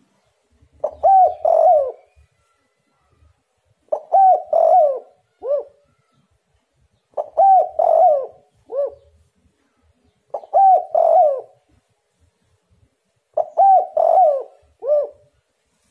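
Spotted dove singing its cooing song: five phrases of two or three low coos, one about every three seconds.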